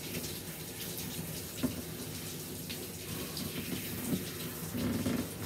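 Handheld shower head spraying water over a Pomeranian in a plastic tub, a steady splashing hiss, with one sharp knock about one and a half seconds in.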